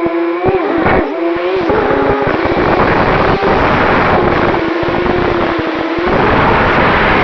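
Brushless motors and propellers of a 250-size FPV racing quadcopter whining, the pitch bending with the throttle in the first second and then holding steady, over a gusty low rumble.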